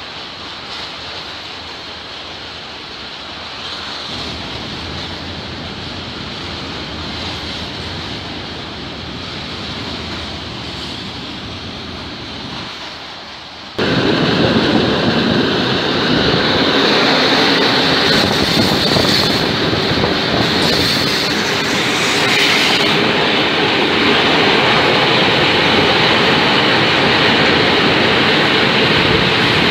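Freight wagons rolling past on the rails: first a train of hopper wagons running through the station with a steady rolling rumble, then, after a sudden jump about halfway through, a much louder, closer rush of wheel and rail noise as a train of Austrian Eanos open wagons passes, with wind on the microphone.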